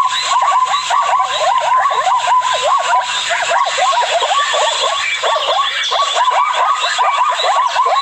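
A dense chorus of many short overlapping animal calls, each a quick swoop down and back up in pitch, over a steady high tone.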